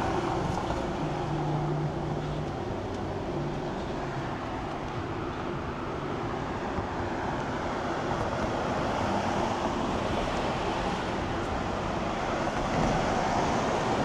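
Steady street traffic noise, with a low engine hum for a second or two near the start.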